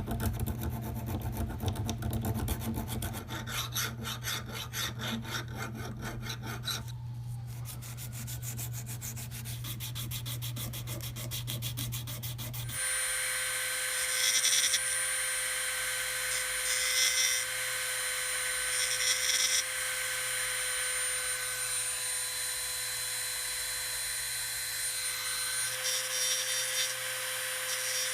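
Hand abrasive work on a steel wrench jaw, rapid rasping strokes in a quick rhythm. About halfway through this gives way to a small power tool running with a steady whine, growing louder in short spells as it grinds on the metal.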